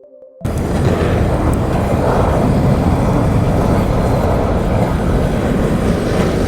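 Strong wind buffeting the microphone: a loud, steady rush heavy in the low end that cuts in abruptly about half a second in, as the music stops.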